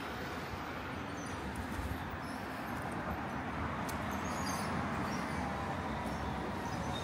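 City street ambience: steady traffic noise, slowly getting a little louder, with a few faint, short high chirps in the first half.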